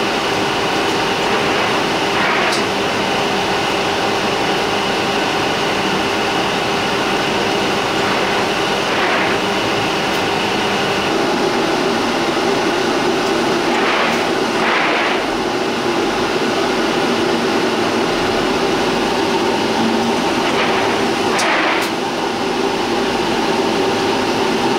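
Steady, loud cabin noise inside an Isuzu route bus: a constant hum with a high whine above it, broken by several brief hisses.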